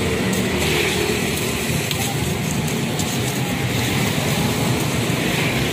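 Stone pestle grinding and crushing peanuts into a wet, sticky rujak sauce on a stone mortar plate, a gritty scraping and crunching that goes on without a break, over a steady background rumble.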